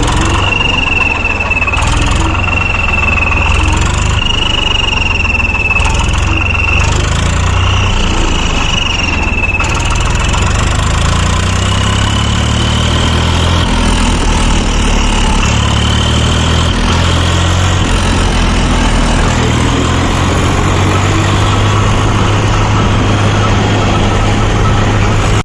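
Swaraj 735 tractor's diesel engine running with an add-on turbo whistle in its exhaust silencer, making a wavering high whistle over the engine's low rumble, like a turbocharger. The whistle is strongest for the first ten seconds or so, then turns fainter and a little higher as the engine note changes; it sounds at low revs and fades as the revs rise.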